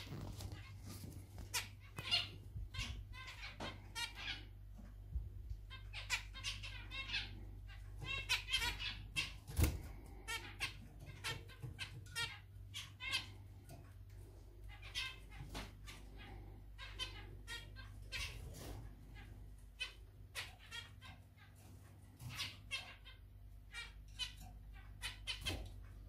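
Zebra finches calling over and over, in quick runs of short calls with brief pauses between, over a low steady hum.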